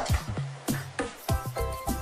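Upbeat electronic background music with a steady drum beat and bass line.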